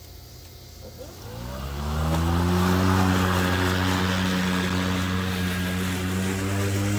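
Hart 20-inch 40-volt brushless battery push mower starting up about a second in, its motor and blade spinning up with a rising whine, then running at a steady pitch while cutting grass.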